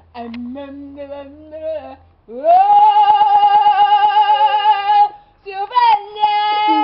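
A woman singing without accompaniment: a short lower phrase, then a loud note that swoops up and is held for nearly three seconds with a slight wobble, then after a brief break another high held note.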